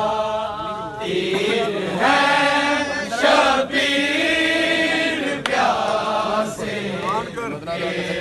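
A group of men chanting a noha, a Shia Muharram lament, together in long sung phrases with short breaks between them.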